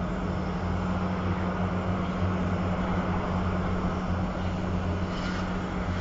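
Large diesel engine running steadily at constant speed, an even low drone with no change in pitch.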